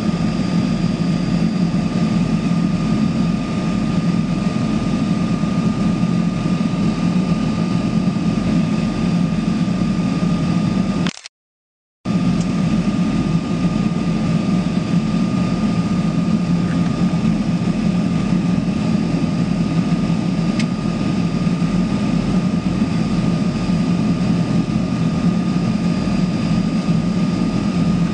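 Propeller aircraft engines running with a steady, unchanging drone and a low hum. The sound drops out completely for under a second about halfway through.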